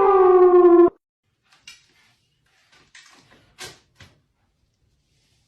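A cat's long, wavering yowl that cuts off abruptly about a second in, followed by a few faint clicks and knocks.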